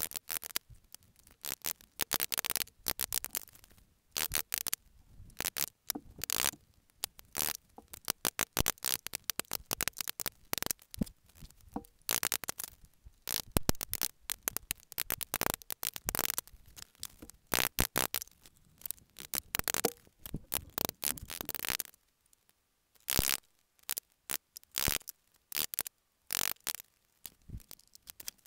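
A chisel being struck over and over, chopping out the waste between dovetails in a pine board: quick irregular sharp knocks, several a second, thinning to a few scattered knocks in the last several seconds.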